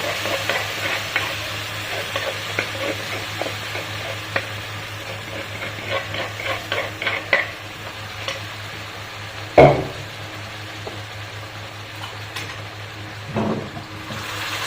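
Chili paste being stir-fried in pork lard: a spatula scraping and tapping around the pan with a light sizzle, many small strokes in quick succession. A louder knock comes about two-thirds of the way through, and a smaller one near the end.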